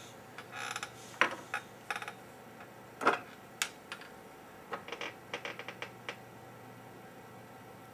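Small clicks, taps and short rustles of hands handling tools at the chip fixture, as tweezers and copper desoldering wick are picked up. A run of quick ticks comes about five to six seconds in.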